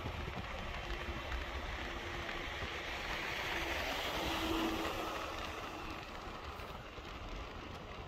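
Road traffic noise heard while riding along a city road: a steady low rumble with hiss, swelling to its loudest about four to five seconds in as a vehicle goes by, then easing off.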